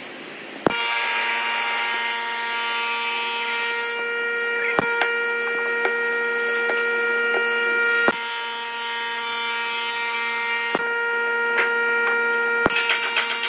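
A workshop power tool's motor running steadily, a constant hum with a high whine and some hiss, starting abruptly about a second in. It is broken by a few sharp clicks, and turns to a fast rattling pulse near the end.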